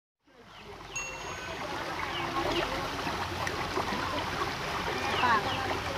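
River water flowing and trickling, a steady rushing noise fading in over the first second, with scattered short chirps over it.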